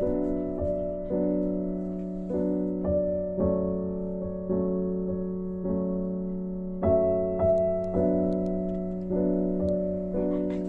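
Background piano music: a slow, gentle melody of struck notes over a held low note, each note fading before the next.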